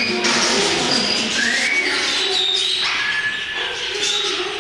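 Caged birds calling: several short whistled notes, one rising, over a busy background of chirping.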